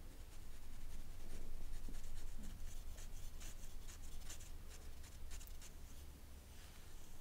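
Close, scratchy rubbing and wiping over the covered camera lens: a quick run of light scrapes, busiest from about a second in and thinning out near the end.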